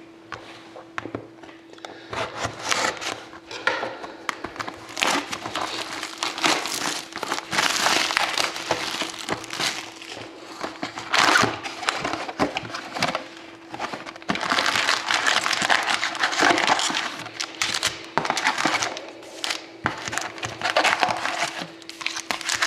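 Plastic shrink wrap being torn off a sealed box of trading cards and crinkled, with cardboard clicks and crackles as the box is opened. A faint steady hum sits underneath.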